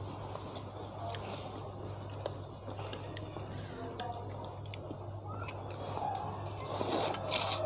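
Metal utensils clicking against a ceramic bowl while eating noodles, then a loud slurp of noodles near the end, over a steady low hum.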